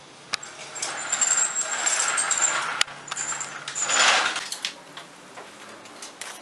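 Roller shutter being lowered: the slats rattle down for about two seconds with a faint high squeal, then give a louder clatter about four seconds in as the shutter closes, followed by a few light knocks.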